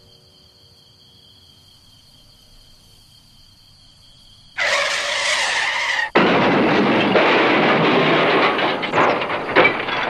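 Faint steady high hum, then about halfway through a sudden car tyre screech that cuts sharply into a loud crash, which goes on for a few seconds and dies away in scattered clatter.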